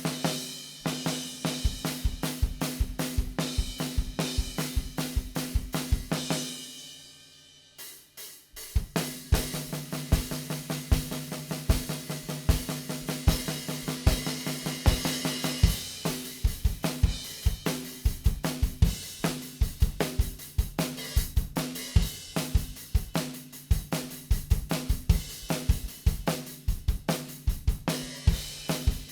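Unprocessed multitrack drum kit recording played back: kick, snare, hi-hat and cymbals in a steady groove, from drums that had drifted out of tune during the session. The playing fades out about six and a half seconds in and starts again a couple of seconds later.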